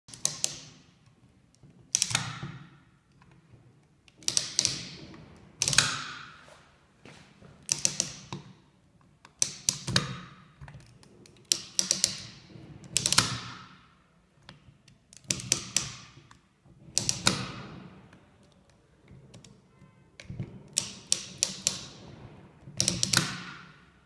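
RunnTech RT300 crane master controller joystick moved back and forth by hand, its mechanism clicking through its positions: clusters of sharp metallic clicks every second or two, each ringing briefly.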